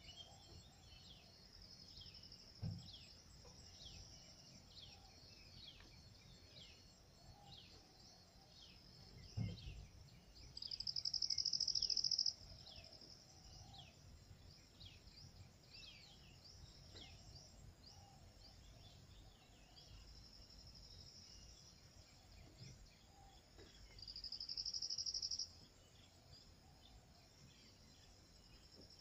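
Wild outdoor ambience dominated by insects: a steady high buzz throughout, which twice swells into a loud buzz lasting about two seconds and cuts off abruptly. Short falling chirps repeat about once a second, and there are a couple of soft low thumps.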